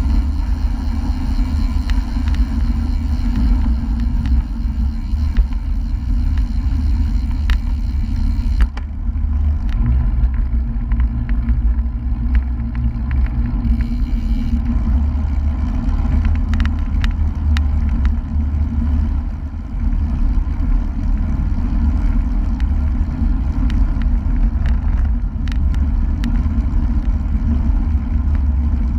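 Wind buffeting a bike-mounted GoPro's microphone while cycling at about 30 km/h, a steady low rumble with road and tyre noise and small clicks and knocks from the bike over the road surface. The hiss above the rumble drops away suddenly about nine seconds in.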